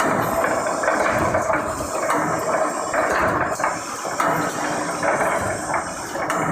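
Brick force wire welding machine running: a steady, loud, noisy hiss with frequent short clicks throughout.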